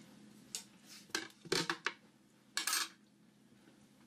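Kitchen clatter: a few light clinks and knocks of dishes and utensils being handled on a table, with one short rustling scrape about two and a half seconds in.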